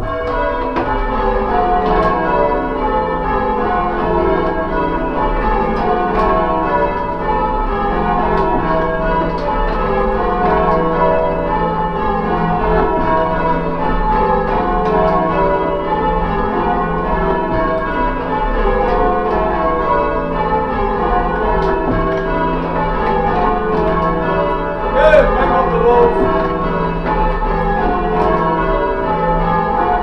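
Church bells rung in changes by a band of ringers on the ropes, heard loudly from the ringing chamber in the tower. The bells sound without a break, in repeated runs of strikes that step down in pitch.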